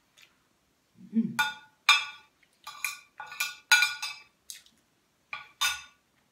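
Metal spoon and fork clinking against a plate in a quick, uneven series of sharp clinks while eating. A short low hum of voice comes about a second in.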